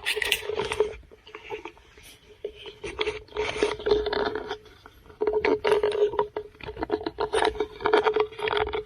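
Irregular scraping, rustling and knocking of a child car seat being shifted and pushed into place on a minivan's third-row seat, quieter for a couple of seconds after the start. A faint steady tone runs underneath.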